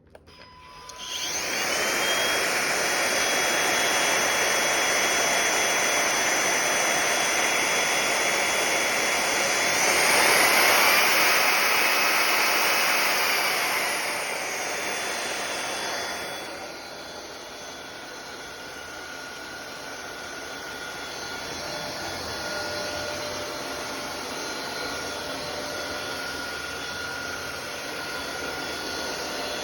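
A Belife cordless stick vacuum switches on and spins up to a steady high whine. About ten seconds in it grows louder, its pitch rising and then falling back over a few seconds. From about sixteen seconds it runs quieter, with a lower tone.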